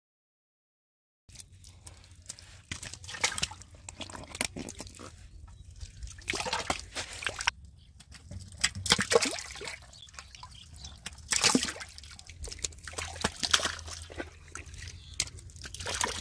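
Shallow muddy water splashing and sloshing in irregular bursts as catfish thrash in a mud-walled fish trap, starting about a second in, over a steady low hum.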